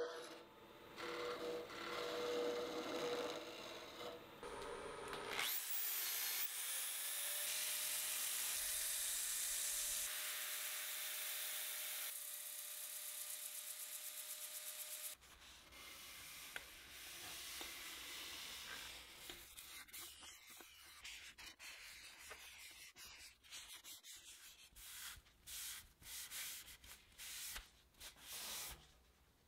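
Manzanita burl on a running wood lathe: a gouge cutting the spinning wood for the first five seconds or so. Then a power sanding disc spins up with a rising whine and sands the piece with a steady hiss, cutting off sharply about halfway through. After that comes quieter, uneven rubbing as a cloth is pressed against the spinning, finished piece.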